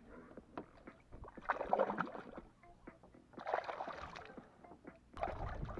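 A hooked fish thrashing at the water's surface beside a kayak while being landed: two splashing bursts, the first about a second and a half in and the second about two seconds later, with a few small clicks and drips between.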